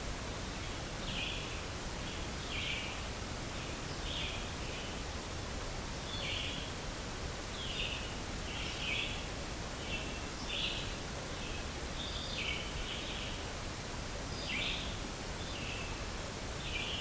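A bird giving short, raspy calls over and over, roughly once a second, over a steady outdoor hiss.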